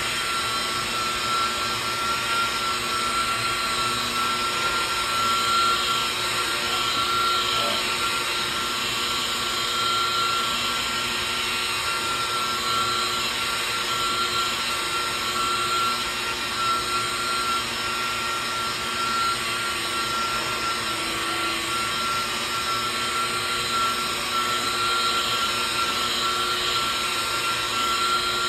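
Electric rotary polisher with a black foam finishing pad running steadily across a painted car door, a constant high motor whine. This is the final polishing pass with a swirl-and-light-scratch remover polish.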